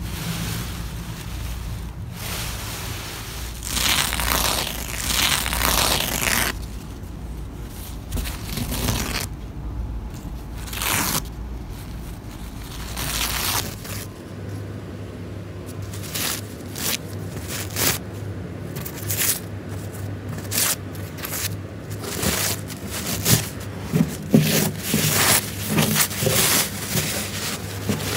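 Torn paper being handled by hand, rustling and crinkling in irregular bursts, louder for a stretch a few seconds in and in quick short crackles later on.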